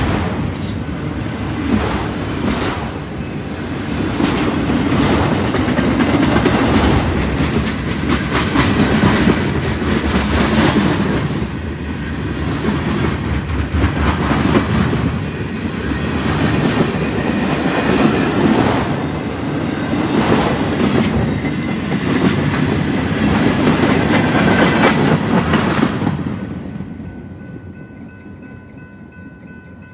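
Freight train cars rolling past at close range: wheels clicking over rail joints, the loudness rising and falling as each car goes by. About 26 seconds in the end of the train passes and the sound falls away quickly, leaving a few faint steady high tones.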